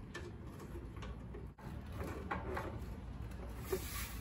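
A few light metal clicks and scrapes from a hex key and the sheet-metal belt guard on a jointer stand as the guard is unbolted and handled, over a low steady rumble.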